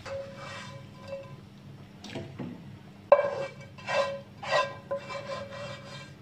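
Spatula and ladle scraping and clanking against a wok while fried garlic is scooped out. The loudest clank, with a ringing metallic tone, comes about three seconds in, and several more follow.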